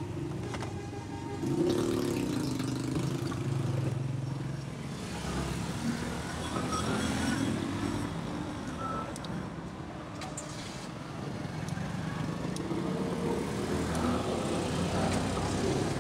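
Motor vehicle engines running and passing, a steady low hum that swells and fades, with a few faint clicks.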